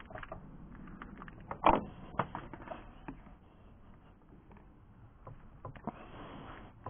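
Irregular knocks and clicks of parts and tools being handled while a VW T4's intercooler is fitted back in place, the loudest knock just under two seconds in.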